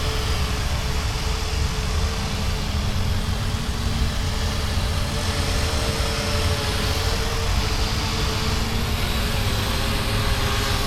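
A steady motor hum with a slightly wavering tone over a heavy, constant low rumble.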